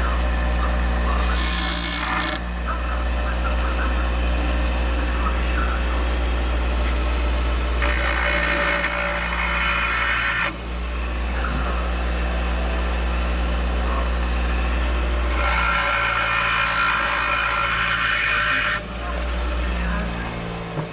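Electric arc welding on a broken mower bellcrank: three separate weld bursts, a short one about a second in and two of about three seconds each, over a steady low electrical hum.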